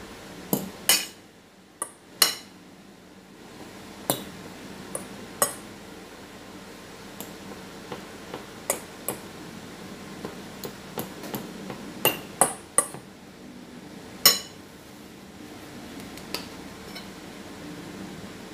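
A metal fork clinking and scraping against a glass mixing bowl while mashing potato and egg: irregular sharp taps, a few louder ones around two seconds, twelve seconds and fourteen seconds in.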